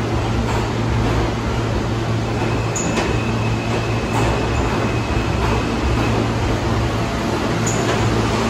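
New York City subway train running with a steady low hum and rumble, a faint high whine and a few faint clicks.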